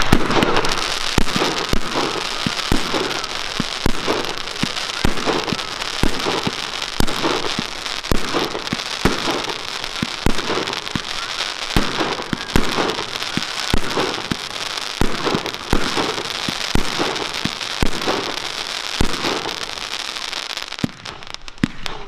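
A fireworks display: a dense barrage of bangs over continuous crackling, thinning briefly near the end before more bangs.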